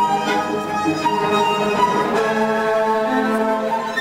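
Instrumental music with bowed strings playing a slow melody of long held notes.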